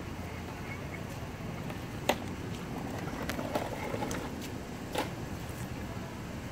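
Steady outdoor street background hum, broken by a few short sharp clicks or taps: the loudest about two seconds in, fainter ones about three and a half and five seconds in.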